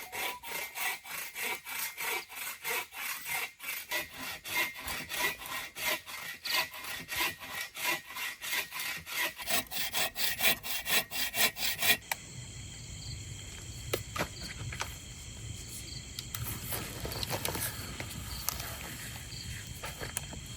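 Folding saw cutting through a thick, dry dead branch with quick, even back-and-forth strokes. About twelve seconds in the sawing stops abruptly, and crickets chirp steadily with a few light clicks.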